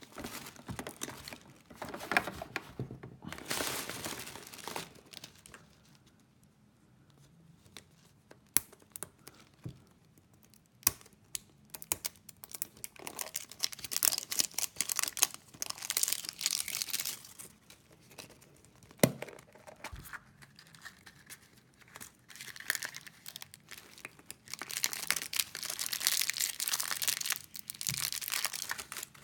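Printed wrapper being crinkled and torn off a plastic surprise egg by hand, in several bursts, with sharp plastic clicks in between as the capsule and small plastic packets are handled.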